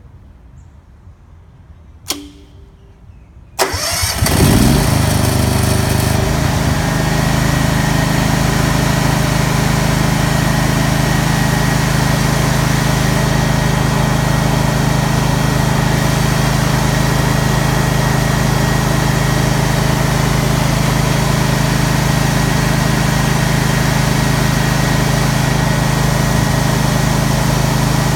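A single click, then about a second and a half later a Honda EM10000 petrol generator is started electrically: its starter cranks briefly, the engine catches, and it settles into a steady run at about 3150 rpm.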